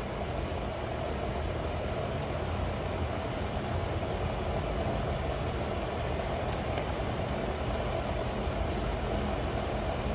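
Steady outdoor background noise: a constant hum with a low rumble underneath, unchanging throughout, and one brief click about six and a half seconds in.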